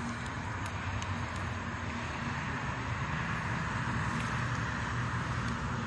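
Steady rumble of distant road traffic, an even hum with no breaks.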